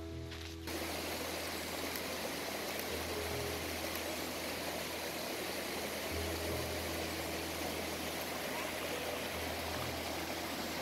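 A mountain creek rushing over rocks: a steady, even hiss of water that starts abruptly less than a second in. Background music with low sustained bass notes runs underneath.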